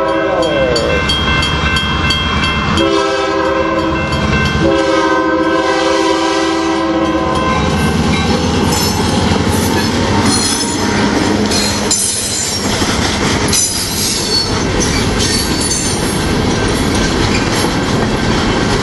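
Freight locomotive's air horn sounding for a road crossing. The first blast drops in pitch as the locomotive passes, then comes a short blast and a long one. After the horn stops, the train runs past with a steady rumble and wheels clattering over the rail joints.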